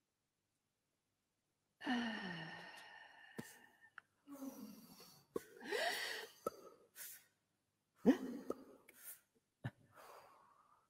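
Human voices making wordless sounds: a falling sigh about two seconds in, then breathy hisses, a short rising vocal glide near the middle and several sharp mouth clicks.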